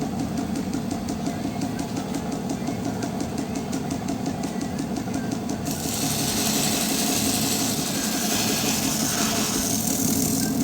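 Belt grinder running with a fast, even ticking; about six seconds in, the sword blade is pressed to the abrasive belt and a loud grinding hiss sets in.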